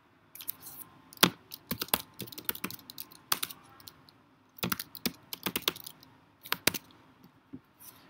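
Typing on a computer keyboard: quick runs of sharp keystroke clicks with short pauses between them, a few keys struck harder than the rest.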